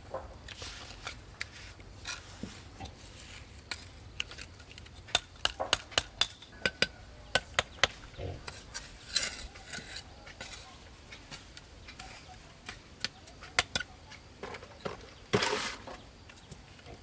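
Bricks and a steel trowel clicking and knocking as clay bricks are set in mortar, in a run of quick, sharp taps through the middle, with a short rasping scrape near the end.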